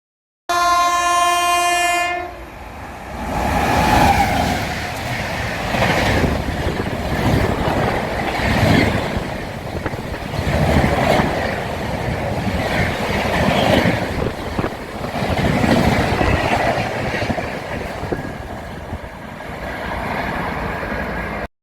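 A Vande Bharat Express sounds its horn in one blast of about a second and a half. The noise of the running train follows, swelling and easing about every two seconds.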